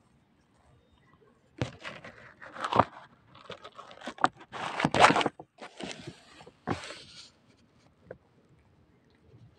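Rough scraping and crunching rustles, an irregular string of them loudest in the middle, from a cat's fur brushing and rubbing against the phone's microphone at close range.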